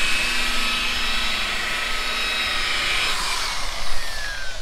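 Rotary car polisher with a foam buffing pad, its motor running at a steady high whine while buffing paint. About three seconds in the whine drops in pitch and fades as the motor spins down.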